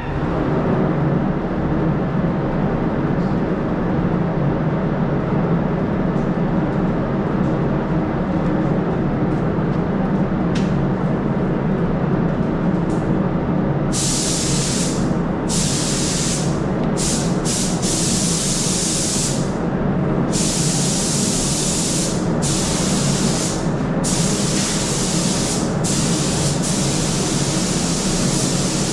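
Extraction fan switched on and running with a steady noise; from about halfway in, an automotive paint spray gun hisses on and off in repeated bursts over it, one burst per pass across the panel.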